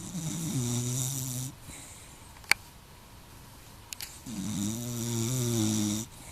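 Cocker spaniel snoring: two long, pitched, rasping snores, one at the start and one about four seconds in. A sharp click falls between them.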